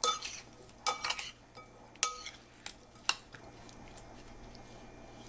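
Metal spoon clinking and scraping against a glass mixing bowl while stirring sliced, sugared peaches: about six sharp clinks spread over the first three seconds.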